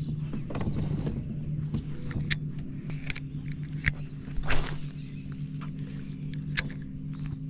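A steady low mechanical hum with scattered sharp clicks and knocks over it, the loudest about halfway through.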